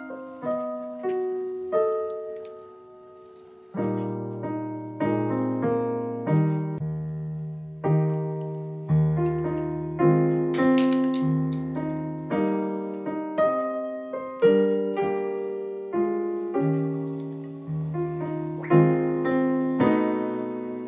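Background piano music: a gentle melody of single struck notes and chords, each ringing and fading, with a brief lull about three seconds in.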